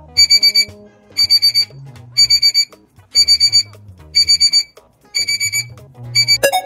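Electronic alarm-clock-style beeping, a burst of four or five rapid high beeps about once a second, over soft background music: a quiz countdown timer running while the answer is awaited. A short rising sweep comes near the end.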